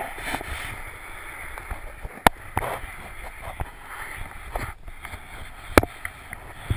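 Flat mop with a cloth pad sliding over wooden floorboards with a cat riding on it: a continuous swishing rub. A sharp knock stands out twice, about two seconds in and again near six seconds.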